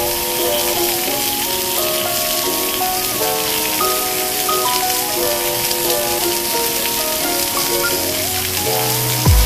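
Pork belly sizzling in a hot cast-iron skillet over a portable gas burner: a steady, dense hiss of frying fat. A background music melody plays over it.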